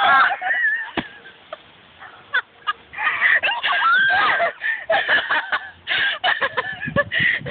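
Two girls laughing hard in high-pitched, breathless fits that start about two seconds in and go on to the end, after a short vocal burst at the very start.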